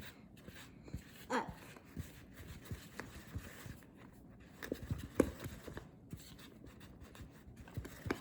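Spoon stirring thick cake batter in a mixing bowl, with irregular scrapes and knocks against the bowl's sides; the sharpest knock comes about five seconds in.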